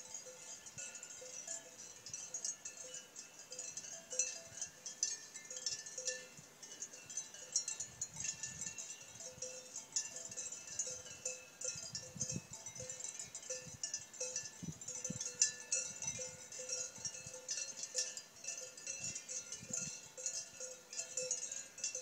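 Many cowbells on a grazing herd of cattle clanking and ringing irregularly and overlapping, as the cows move their heads while feeding. A steady high-pitched hiss runs underneath.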